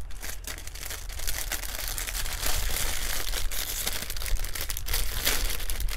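Thin clear plastic bag crinkling and rustling as an antenna and its cable are pulled out of it, an uneven run of crackles.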